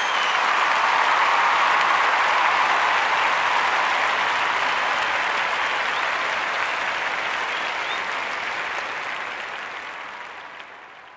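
Crowd applause, a dense steady clapping with a few faint whistles, fading out slowly over the last few seconds.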